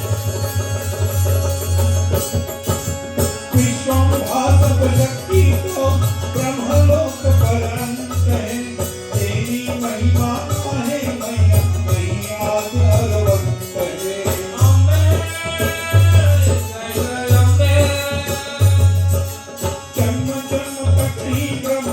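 Devotional bhajan music: a melodic line over repeated low drum beats.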